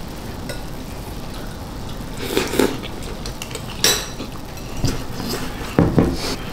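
Eating at a table with chopsticks: several short clinks and knocks of chopsticks and a spoon against a ceramic bowl, spread through the second half, over a steady background hum.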